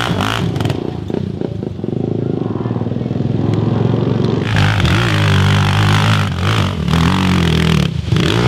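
Quad (ATV) engine running at high revs with a wavering pitch, as the stalled quad is pushed up the steep dirt climb. It is louder and fuller from about four and a half seconds in.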